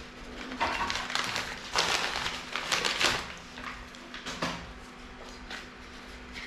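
3x3 Rubik's cube being handled and turned: irregular plastic clicks and scraping, busier in the first half.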